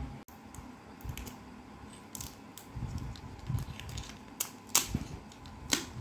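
Irregular small sharp clicks and light knocks from the opened Jio keypad phone's parts being handled: the adhesive metal-dome keypad membrane is lifted off the circuit board.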